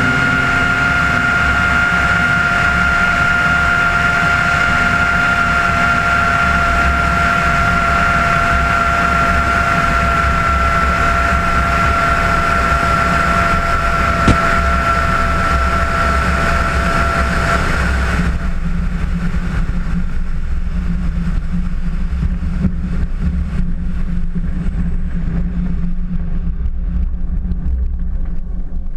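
Glider rolling out on a grass airfield, heard from a wing-mounted camera: a steady low rumble with wind noise on the microphone. A steady high whine runs over it and stops about eighteen seconds in, leaving only the lower rumble as the glider comes to rest.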